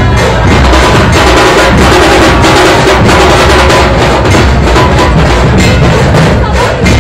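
Dhol and tasha drums played loudly, a dense run of sharp drum strokes with no break.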